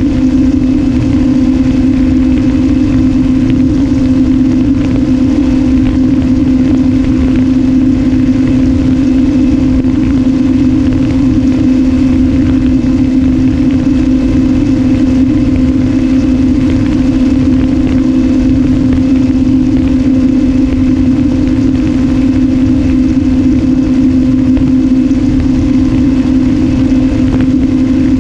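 Brushless electric motor and pusher propeller of an RMRC Strix Strato-Surfer FPV wing running at a steady cruise throttle: one constant hum with overtones that does not change in pitch. Wind rumbles on the nose-mounted GoPro's microphone underneath it.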